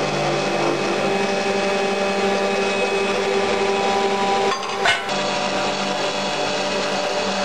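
Carbide circular saw machine cutting through a solid round metal bar, a steady machine noise with several steady tones as the blade runs through the stock. About five seconds in the sound breaks off briefly with a sharp click, then the machine runs on steadily.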